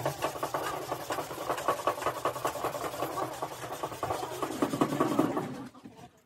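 A small blade scraping a plastic car headlight lens in rapid short strokes, a dense rasping scratch that stops near the end.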